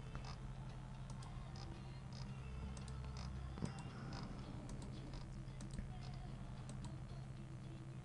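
Faint, scattered clicks of a computer keyboard and mouse, over a steady low electrical hum.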